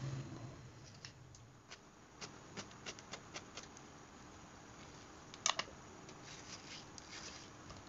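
Kitchen knife cutting a peeled mango into cubes over a ceramic plate: a series of light clicks as the blade meets the plate, with a louder double click a little past halfway.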